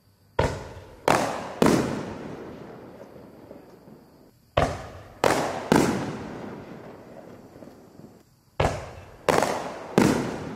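Boomwow 7" Quadzilla consumer firework canister shells going off: three groups of three sharp bangs about four seconds apart, each bang with a long fading echo.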